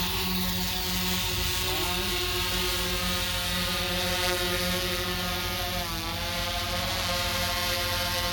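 Yuneec Typhoon H hexacopter's motors and propellers buzzing steadily at flight speed. The pitch shifts slightly, dipping once about six seconds in.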